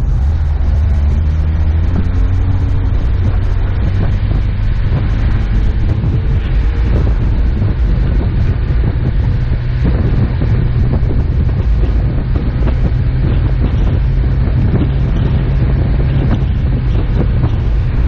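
A 4x4 off-road vehicle's engine running under way, a steady low rumble whose pitch rises over the first few seconds as it speeds up and again about six seconds in, with wind buffeting the microphone.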